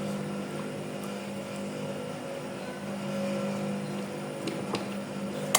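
Steady motor-like hum, with a few light clicks about four and a half seconds in and one sharp click near the end from a hand rivet press setting a metal snap button.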